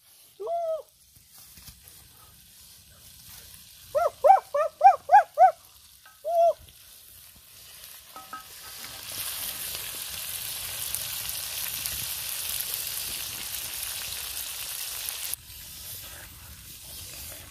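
Chicken pieces sizzling in hot oil in a clay pot over a wood fire as they are stirred, a steady hiss from about halfway in that cuts off suddenly near the end. Earlier, a quick run of about six short pitched calls, each rising and falling.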